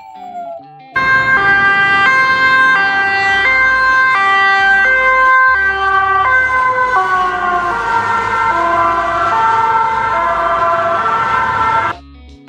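Two-tone ambulance siren, alternating high-low about every 0.4 s. It starts about a second in, slides gradually lower in pitch through the second half, and cuts off suddenly near the end.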